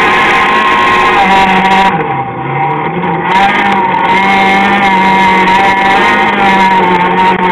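Citroën AX rally car's engine heard from inside the cabin, held at high revs on a dirt autocross course. About two seconds in the revs drop briefly, then pick up again.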